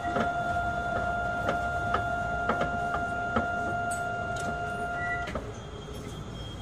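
A steady mid-pitched electronic tone inside an Astram Line 6000-series car, with faint ticks about twice a second. It cuts off about five seconds in, just after a short higher beep.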